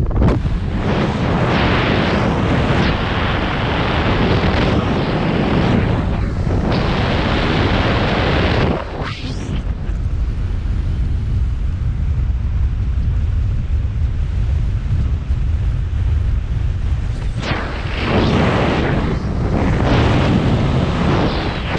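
Wind noise from the airflow of a paraglider flight rushing and buffeting over the microphone, loud and gusty; it eases off for several seconds in the middle and then picks up again.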